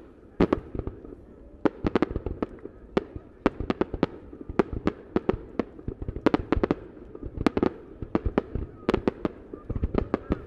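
Aerial firework shells bursting in a rapid, irregular barrage of sharp bangs, several a second, with a low rumble between them, heard from about a kilometre away.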